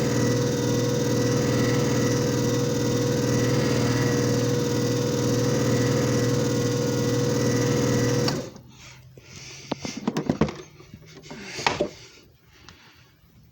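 JFJ Easy Pro disc repair machine running with a steady motor hum and whir, which stops abruptly about eight seconds in. A few clicks and rubbing handling sounds follow.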